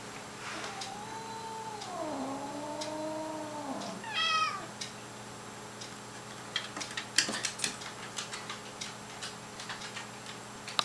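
A cat's long, low, drawn-out yowl that slides down in pitch over about three seconds, a warning at the puppy approaching the bed. A short high cry follows about four seconds in, then scattered light clicks and taps.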